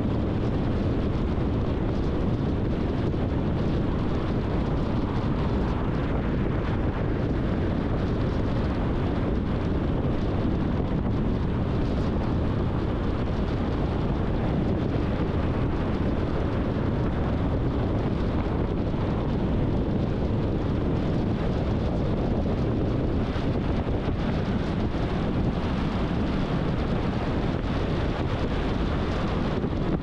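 Steady road and wind noise of a car driving on a freeway, with wind rushing over the microphone.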